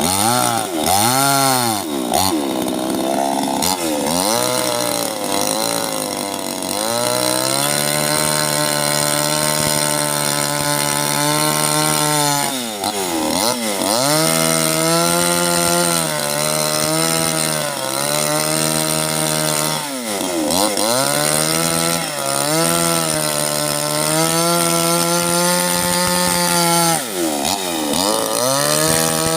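Two-stroke chainsaw running at high revs, cutting into oil palm. Its engine pitch dips and recovers a few times, twice quickly at the start and then every several seconds, as the throttle is eased and the saw takes load.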